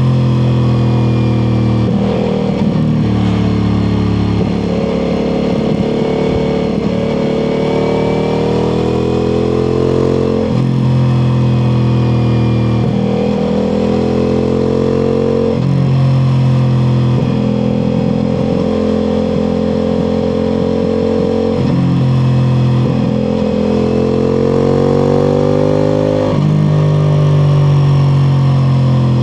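Ducati Multistrada V4 Pikes Peak's V4 engine with an Akrapovic exhaust under way, its pitch rising steadily under throttle, then dropping sharply every few seconds.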